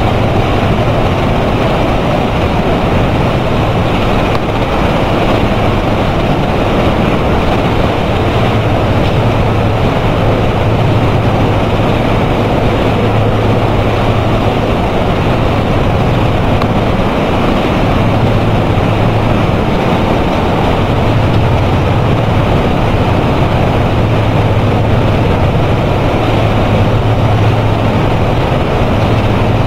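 Flexographic label press running: a steady, loud mechanical din with a low hum underneath that swells and fades several times.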